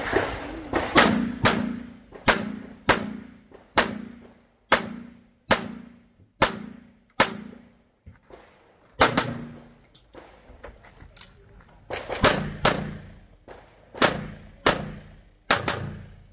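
Competition pistol shots fired in a string, about twenty in all, roughly one every half second to a second, each with a short echoing tail. There is a pause of a couple of seconds near the middle before the shooting picks up again.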